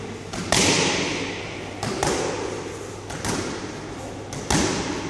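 Boxing gloves smacking into focus mitts in a run of punches, some in quick pairs, each impact ringing out in the hall.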